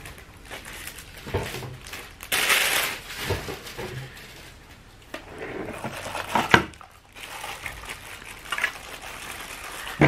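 Plastic packaging crinkling and rustling as the parts of an electric burr coffee grinder are handled and unwrapped, loudest for about a second starting two and a half seconds in, with a single sharp knock about six and a half seconds in.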